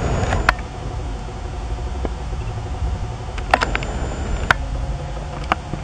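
Steady low rumble of outdoor background noise with several sharp clicks: one near the start, a close pair about three and a half seconds in, and single ones around four and a half and five and a half seconds in.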